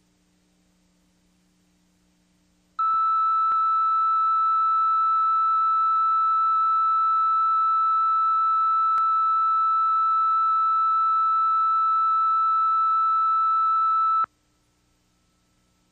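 Videotape line-up tone played with colour bars: a single steady high-pitched test tone that switches on about three seconds in, holds for about eleven seconds and cuts off sharply. A faint low hum can be heard before and after it.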